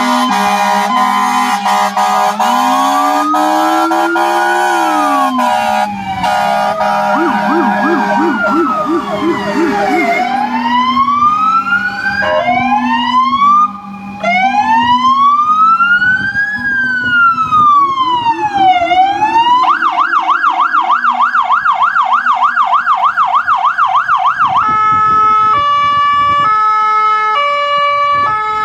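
Sirens of several Polish volunteer fire brigade fire engines sounding at once, overlapping slow rising-and-falling wails. About twenty seconds in a fast warble takes over, and near the end a two-tone hi-lo siren.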